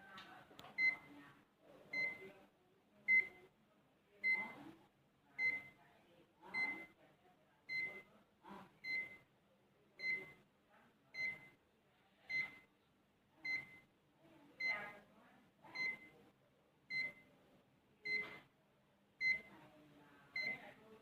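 Electronic beeper giving a short high beep about once a second, evenly and repeatedly, during a test of a repaired computer power supply.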